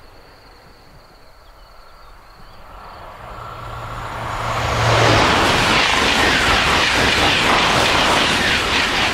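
Double-deck OUIGO TGV high-speed train approaching and passing close by at speed. A rushing noise swells over the first few seconds, with a low hum as the train nears. From about halfway it becomes a loud, steady rush of wheels and air with a fast flutter as the carriages go by.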